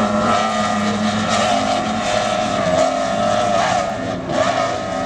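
Twin outboard motors of an offshore racing powerboat running flat out, a steady engine note with small rises and dips over the hiss of wind and spray.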